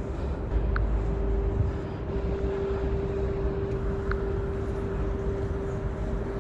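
Steady low rumble with a constant mid-pitched hum, like distant traffic or machinery, with a few brief high chirps.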